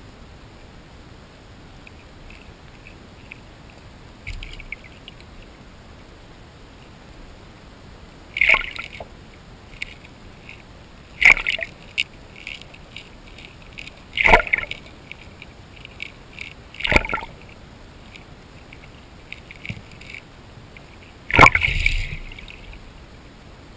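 Handfuls of corn kernels and cat kibble splashing into the water, heard through an underwater camera: six sudden splashes roughly every three seconds, starting about four seconds in, with lighter ticks between them.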